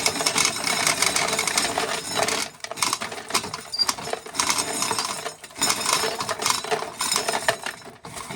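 Corn sheller stripping kernels off ear corn: a dense, rapid clatter of machine and loose kernels, broken by two short pauses about two and a half and five and a half seconds in.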